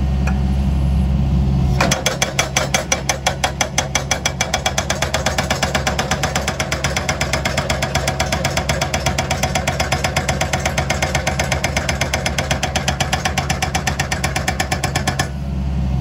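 Diesel engine of a John Deere 60G compact excavator running, then about two seconds in its NPK hydraulic breaker starts hammering rock at the bottom of a trench in rapid, even blows, several a second. The hammering stops shortly before the end while the engine runs on.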